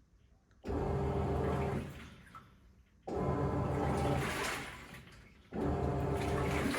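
Teco TWM100TAB top-load washer agitating: the motor drives the pulsator-agitator in strokes, each a motor hum with water swishing through the load. Three strokes come about two and a half seconds apart, each fading off before the next starts.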